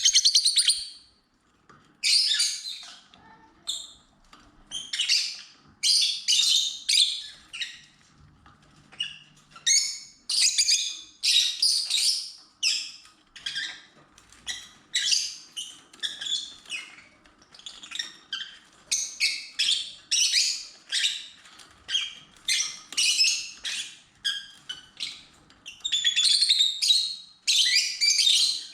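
Pet lovebirds calling: a long run of short, high-pitched chirps in quick clusters with brief pauses between them.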